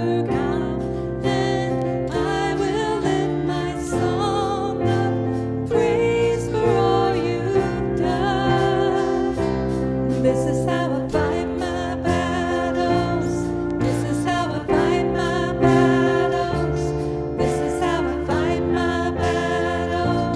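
Worship music: a band playing a song with voices singing over sustained chords.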